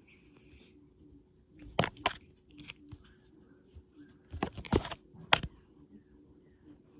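A few short, sharp crackling clicks from a cat scrambling and swatting at a ribbon on a fleece blanket: a pair about two seconds in, a quick cluster around four and a half seconds, and one more just after.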